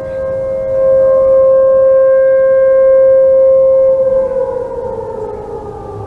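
Several outdoor tornado warning sirens sound together at slightly different pitches, holding steady tones. About four seconds in they wind down, falling in pitch and fading as the cycle ends.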